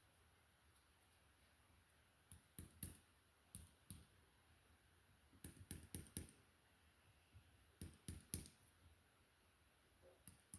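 Near silence broken by short clusters of sharp clicks and light knocks, four groups a couple of seconds apart.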